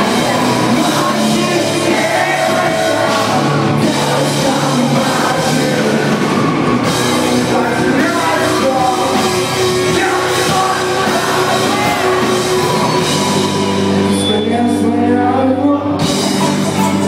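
Live heavy rock band playing with singing: drums, guitars and vocals. The cymbals and high end drop out for about two seconds near the end, then the full band comes back in.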